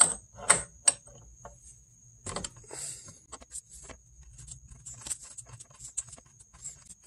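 Scattered light metallic clicks and taps as a tool and gloved fingers work the oil cooler line fitting loose at the bottom of a radiator, the sharpest few in the first second. A faint steady high-pitched whine runs underneath.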